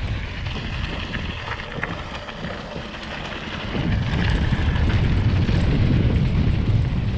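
Wind rumbling over an action camera's microphone while a mountain bike is ridden, with the bike rattling over the trail. It eases off in the middle, then builds again.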